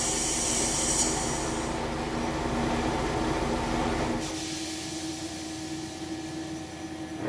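Home-built CNC router moving after an automatic tool change, with the tool rack sliding back: a steady machine whir with a hum that cuts off about four seconds in, leaving a quieter steady tone.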